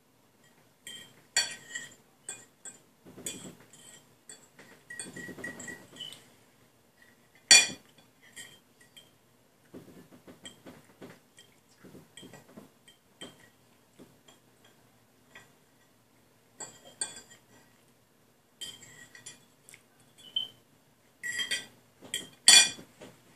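Metal forks clinking and scraping against dinner plates in scattered, irregular taps, each with a short ring. The loudest clinks come about seven and a half seconds in and again near the end.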